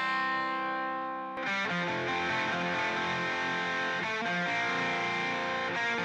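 A soloed distorted electric guitar track from a song mix: a held chord rings and fades, then a new chord is struck about a second and a half in and the part plays on.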